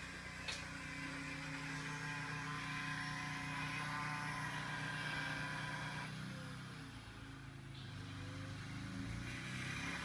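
Electric angle grinder cutting metal and throwing sparks, running over a steady low engine hum from a small Honda portable generator. The sound eases off between about six and nine seconds in, then picks up again.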